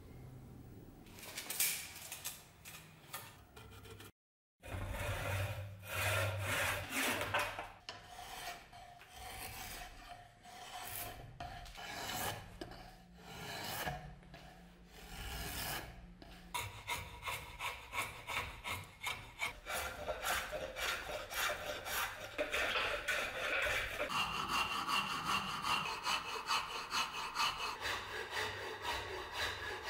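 Hand rasp scraping along a beech axe-handle blank as it is shaped: irregular strokes at first, broken by a brief dropout about four seconds in, then a steady run of quick strokes, about three a second, through the second half.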